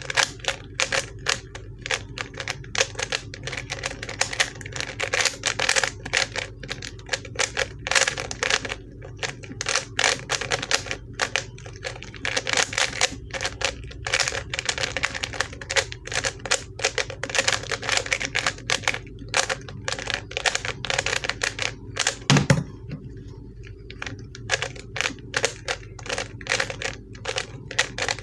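ShengShou 3x3 speedcube being turned fast, a dense run of rapid plastic clicks and clacks from its layer turns, on a cube its owner finds very stiff to turn. About 22 seconds in a single low thump comes as the solve ends and the timer is stopped, after which the clicks come more sparsely.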